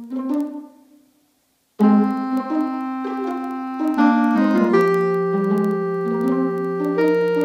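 Background music: a run of short, decaying notes fades out, and after a brief silence a piano piece begins about two seconds in, with held chords and a melody.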